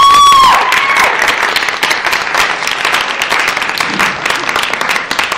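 Audience applauding, with a long high whoop from someone in the crowd in the first second.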